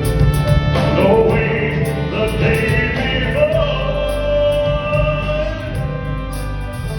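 Sung pop ballad with a backing band and choir-like backing voices, a long held vocal note through the middle.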